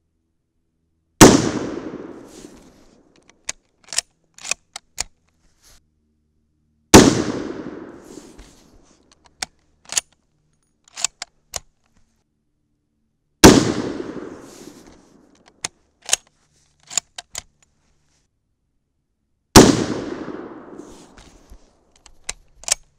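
Four rifle shots from a bolt-action Mosin-Nagant in 7.62×54R, about six seconds apart, each with a long echoing tail. Between shots come sharp metallic clicks of the bolt being worked to eject the case and chamber the next round. The rounds are light hand-loads running about 2,450 feet per second.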